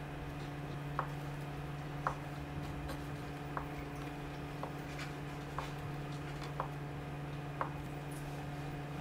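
Knife blade tapping down on a wooden cutting board as a block of Spam is diced into small cubes, about one cut a second, over a steady low hum.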